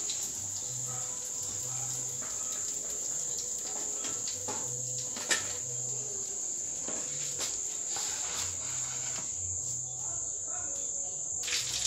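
A steady, high-pitched cricket trill that cuts off abruptly near the end. Faint crackling sounds under it, and there is one sharp metallic clink, a utensil against the frying pan, about five seconds in.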